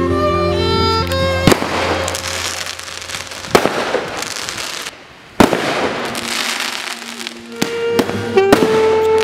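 Aerial fireworks bursting: about five sharp bangs roughly every two seconds, each trailing into crackling, over background music.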